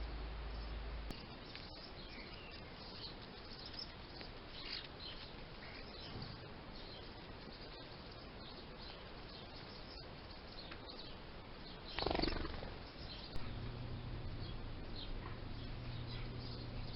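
Small birds chirping, with short high calls scattered throughout over a steady outdoor background. About twelve seconds in there is a brief, loud rushing noise, and a low steady hum starts shortly after it.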